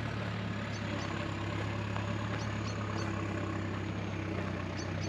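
A motor vehicle's engine running steadily at low revs, a constant low hum.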